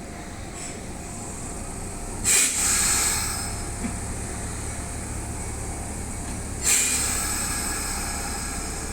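Kintetsu electric commuter train with its steady low running rumble and two sudden loud bursts of hissing air, about two and seven seconds in, each fading away within about a second.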